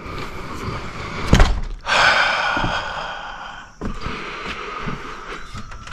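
A door being shut, with one sharp thunk about a second and a half in, followed by a steady rushing noise for about two seconds that cuts off suddenly.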